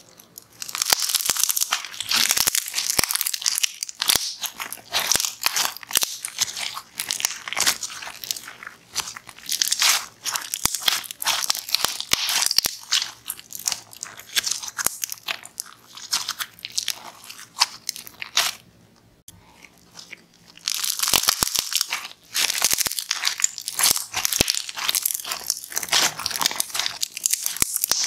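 Hands squeezing and kneading a white fluffy slime, making dense crunchy crackling and popping. It stops for a couple of seconds about two-thirds of the way through, then starts again.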